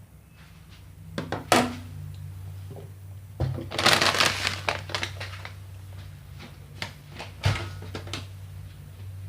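Kitchen handling noises: a few sharp knocks and a rustling clatter about halfway through, over a steady low hum.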